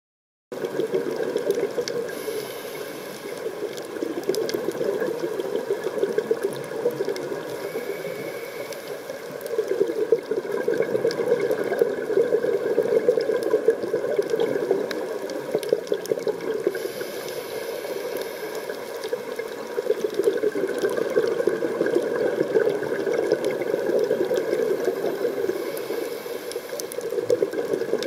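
Underwater rush and bubbling from a scuba diver's regulator breathing. It swells louder and fades back every several seconds, with faint scattered clicks through it.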